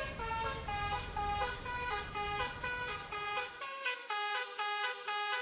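Car-horn honks played as a quick stepping melody in a pop track's intro, about four notes a second, over a low rumble that cuts out a little past the middle.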